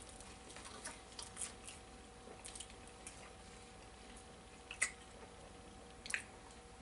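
Faint chewing and wet mouth smacks of people eating pizza, with two louder smacks in the second half, over a faint steady hum.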